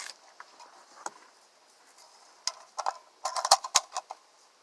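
Sharp metallic clicks and clacks from a 12 gauge pump-action bullpup shotgun being handled just before firing, with a cluster of clicks in the second half and two loud clacks close together about three and a half seconds in.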